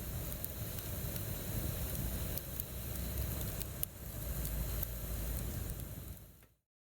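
Wood campfire crackling with scattered sharp pops over a steady low rumble, fading out to silence near the end.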